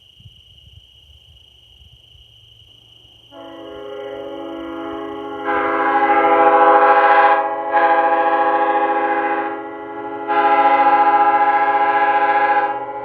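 A multi-chime locomotive air horn sounds a steady chord, coming in softly about three seconds in and swelling, then blowing three long, loud blasts, easing back between them without stopping.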